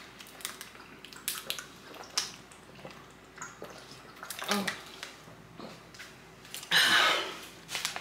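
Two people gulping cold water from thin plastic water bottles, the bottles crinkling and crackling as they are squeezed. Scattered small clicks throughout, and a louder rush of noise about seven seconds in.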